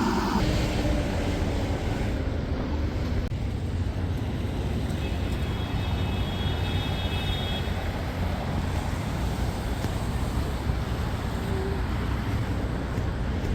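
Steady city street noise of road traffic going by, with a faint high tone for a few seconds in the middle.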